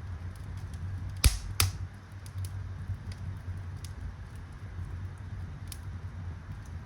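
Wood fire burning in a fireplace, crackling with scattered small pops and two louder snaps in quick succession about a second in.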